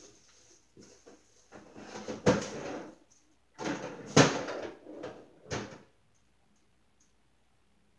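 Someone rummaging in an open refrigerator: a run of knocks, clunks and rattles as containers on the shelves are moved. The loudest clunks come about two and four seconds in, and it stops about six seconds in.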